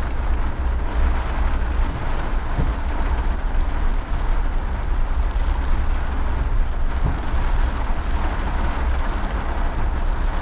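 Heavy rain falling steadily, with a constant deep rumble of wind buffeting the microphone.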